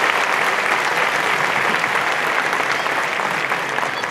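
Large audience applauding, a dense and steady clapping that eases slightly toward the end.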